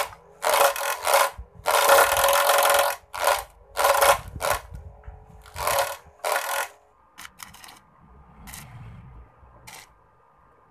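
Homemade mini grass chopper, driven by a salvaged toy-car electric motor, running with a steady whine while grass stalks are fed in, making loud bursts of chopping noise one after another. About seven seconds in the chopping stops and only a faint hum with a few clicks remains.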